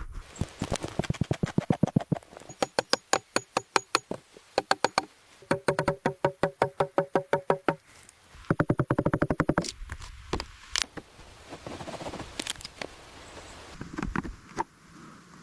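Building work: runs of rapid, sharp knocks, several a second, some with a ringing pitch, like hammer or tool strikes, then a few scattered knocks.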